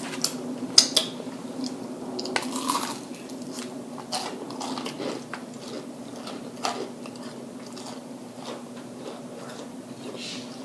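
Close-up eating of fried food: crisp crunching bites and wet chewing, the loudest crunches in the first few seconds, then quieter irregular chewing.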